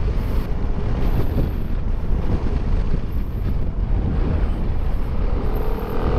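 2019 Kymco Xciting S 400 maxi-scooter's single-cylinder engine running at road speed through a bend, under a heavy low rush of wind and road noise. Near the end the engine note steadies and comes through more clearly.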